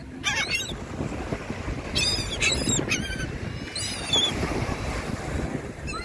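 A flock of laughing gulls calling overhead: clusters of short, high calls about half a second in, around two seconds and around four seconds, over a steady low rumble of wind on the microphone.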